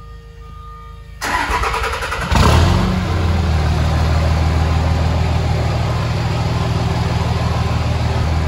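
2006 Dodge Ram 2500's 5.9-litre Cummins diesel being started on a freshly primed fuel system. The starter cranks for about a second, the engine catches with a loud burst a little over two seconds in, and it settles into a steady idle.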